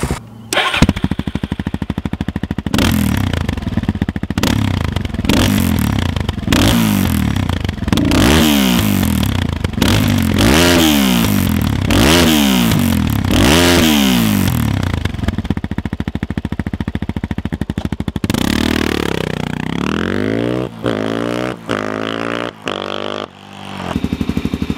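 Suzuki DR-Z400's single-cylinder four-stroke engine through a LeoVince X3 aftermarket silencer, revved in a run of quick throttle blips, each rising and falling, about one every second and a quarter, then more revving. Near the end it cuts to another DR-Z400 with an FMF PowerCore 4 silencer, running steadily.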